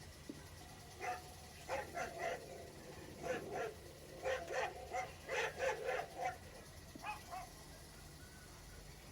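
A recording of dogs of several breeds barking, played back at low volume through an iPad's speaker: a string of short barks coming in bursts, dying away about seven and a half seconds in.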